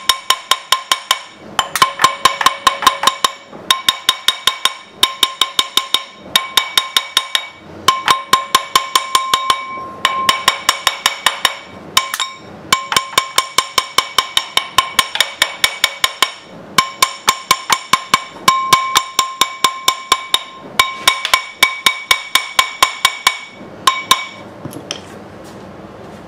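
Rapid, loud hammer blows on the stuck pulley of a Briggs & Stratton NR6 gear-reduction engine, driving it off its shaft. The blows come about five a second in runs of a second or two with short pauses, and each run has a metallic ring. The strikes stop shortly before the end.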